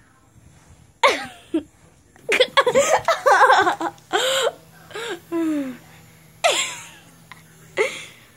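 A person laughing in a string of short bursts, the longest near the middle.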